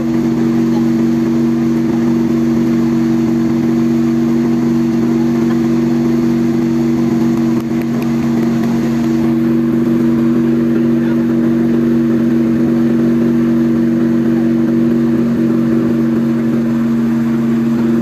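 Fire truck engine running at a steady speed, a loud unchanging low hum.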